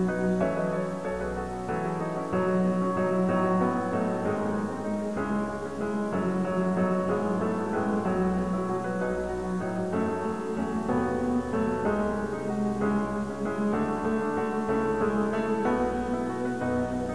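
Piano music: chords and a melody line played on the piano, the notes changing steadily.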